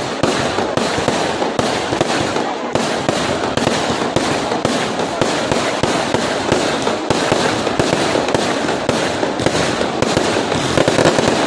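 Fireworks going off in a dense, continuous crackle of many rapid small bangs.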